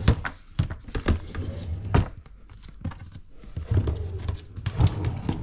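A white cabinet drawer sliding shut, with a string of sharp knocks, and the next drawer being pulled open.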